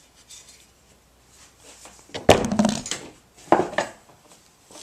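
Hand tools being handled and set down: one sharp knock about two seconds in with a short ring, then two lighter clunks about a second later.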